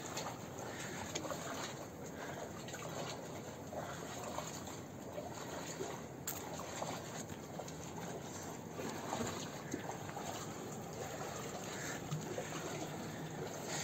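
Water trickling and running steadily, as from a small mountain stream.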